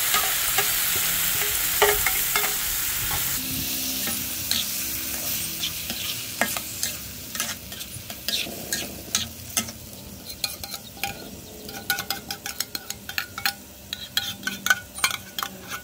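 Ground pork and wet wolffia frying in a wok: a loud sizzle that fades over the first few seconds as the wolffia goes in. Then a metal spatula scrapes and clicks against the wok and the enamel plate, more often toward the end.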